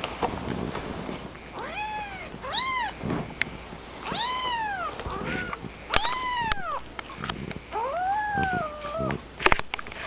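Kitten mewing, about five high-pitched arching mews, the last one longer and wavering near the end, with a few sharp clicks between them.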